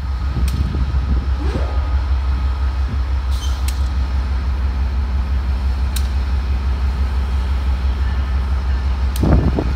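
GE P40DC diesel locomotive idling at a station, a steady low drone, with a few faint clicks. A louder rumbling starts just before the end.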